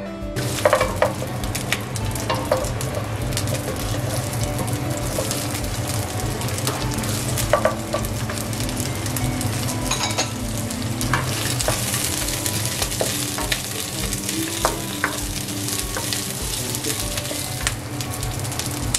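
Onion and red bell pepper pieces sizzling in hot oil in a nonstick pan, stirred with a spatula, with scattered clicks and scrapes of the spatula against the pan. The sizzle starts abruptly just after the beginning.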